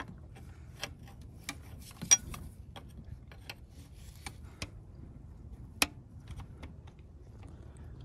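Steel open-end wrench clicking and tapping against a diesel fuel injector line nut as it is fitted, repositioned and worked loose: a dozen or so light, irregular metal clicks, the sharpest about two seconds in and again near six seconds.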